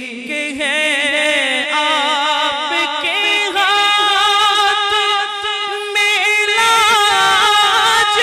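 A naat sung by a male reciter without instruments. He draws out long, wavering held notes between lines of the verse.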